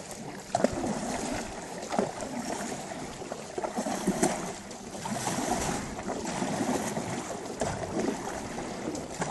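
Wooden paddles stroking and splashing through river water as a wooden boat is paddled hard, with a few sharp knocks among the strokes.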